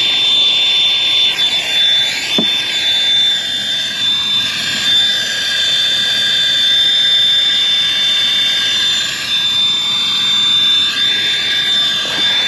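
Hose-fed brazing torch burning with a steady rushing hiss, with a thin high whistle over it, as it heats a copper refrigerant line joint at a brass service valve for silver soldering.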